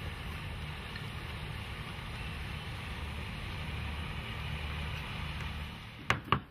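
Motorized boat running steadily, a low engine drone with water washing along the hull. A few sharp knocks come near the end.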